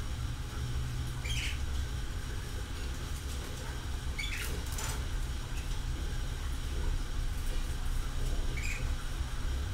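An animal's short, high calls, three of them spaced a few seconds apart, over a steady low rumble.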